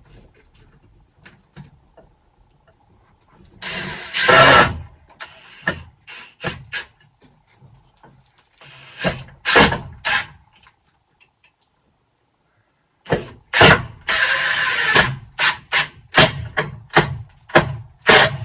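Cordless power driver driving screws into wooden blocking in bursts: a run about four seconds in, another at about nine seconds, then a longer run at about thirteen seconds followed by a string of short trigger pulses.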